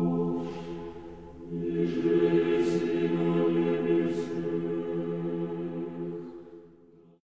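Slow choral chant over a held drone, fading out over the last two seconds and stopping just before the end.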